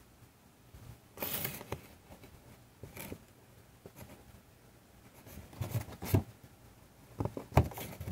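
Handling noise from a cardboard toy box: scattered short rubs, scrapes and knocks of hands on the packaging, the loudest a knock near the end.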